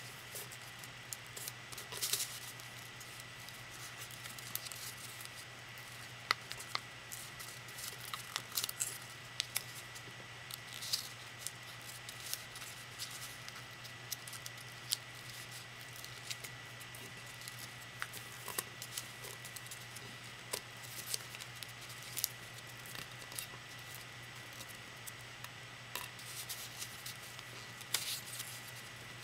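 Paper being folded and creased by hand for origami: scattered crinkles and short, sharp rustles at irregular intervals.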